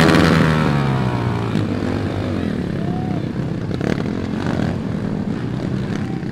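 Dirt bike engine running past, its pitch gliding down over the first second or two, then giving way to rougher engine noise that slowly eases off.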